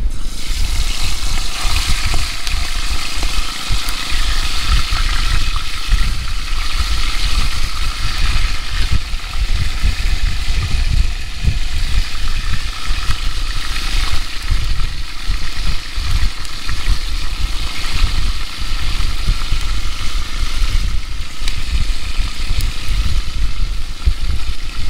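Prawns and fish frying in oil in a cast-iron pot, a steady sizzle that starts suddenly as the first one goes into the hot oil. Wind buffets the microphone throughout with a low rumble.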